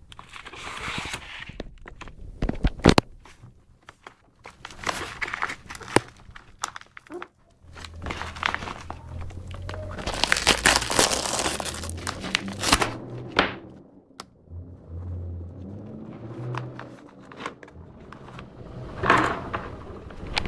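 Packaging of a PCI USB 3.0 card and cable being handled and opened: plastic crinkling and rustling with scattered clicks and light knocks. The crinkling is densest about ten to thirteen seconds in.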